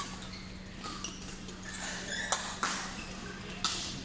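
Badminton rally: sharp racket strikes on the shuttlecock, three clear hits in the second half, with lighter clicks and short squeaks in between.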